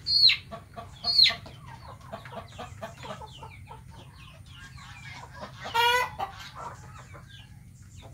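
Chickens calling: two loud high peeps falling in pitch in the first second and a half, a run of soft clucks, and a louder squawk about six seconds in.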